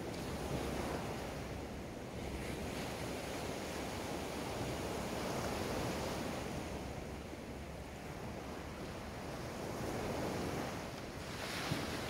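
Small waves breaking and washing up a sandy beach: an even rush of surf that swells and ebbs every few seconds, with a sharper splash of a breaking wave near the end.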